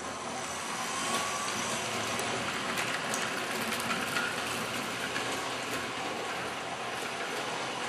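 Trix Express H0 model trains running on the layout's track: a steady rolling rattle scattered with small clicks, growing louder over the first second and then holding.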